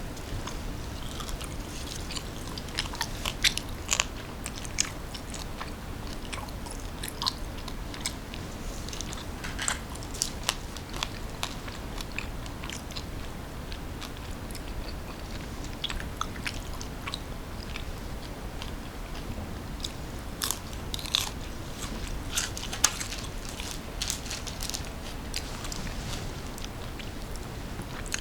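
Close-miked chewing of crunchy food, with bursts of sharp crunches and bites that come in clusters between quieter chewing.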